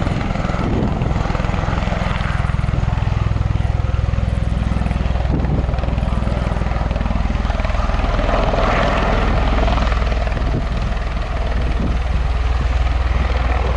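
Bell Boeing V-22 Osprey tiltrotor flying low in helicopter mode on its landing approach: a steady, loud, fast-pulsing deep rotor beat over turbine noise.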